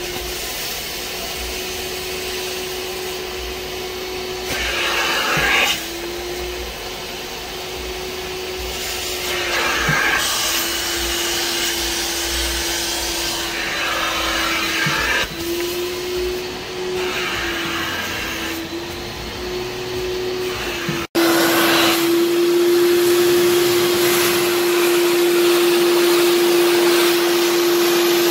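Kärcher Puzzi 10/1 spray extractor's suction motor running steadily, with a hissing rush every few seconds as the upholstery nozzle is worked over the fabric. About two-thirds through it breaks off for an instant, then runs on steadier and a little louder.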